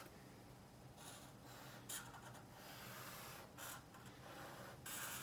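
Faint, scratchy strokes of a pen or pencil drawing a sketch on paper, coming in short irregular strokes.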